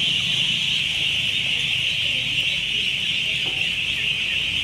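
Thousands of young ducks peeping at once, a steady, shrill, unbroken chorus.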